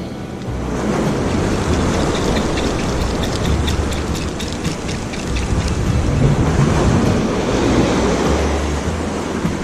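Wind buffeting the microphone: a loud, even rushing noise with deep gusting rumbles, and a run of faint ticks in the middle.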